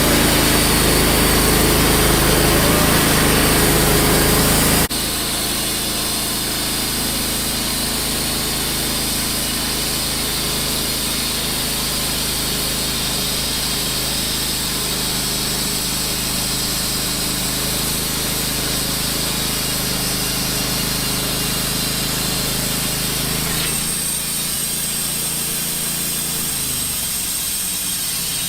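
Wood-Mizer LT15 band sawmill running, its band blade cutting a board from a soft maple log. The sound drops suddenly about five seconds in and then runs on steadily, with the low hum changing near the end.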